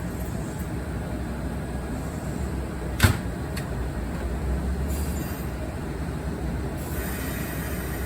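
Kintetsu Osaka Line train rumbling low and steady at the station, with one sharp metallic clank about three seconds in and a hiss that starts near the end.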